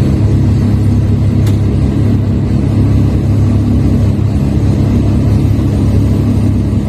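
Heavy lifting machinery's engine running steadily, a continuous low drone, with a faint tick about a second and a half in.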